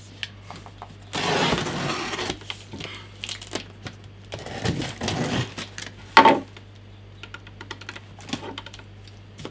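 Cardboard box being slit open with a utility knife and its flaps handled: a scraping rip a second in, more cardboard scraping around four and a half seconds, and a sharp click a little after six seconds, with small taps and knocks between.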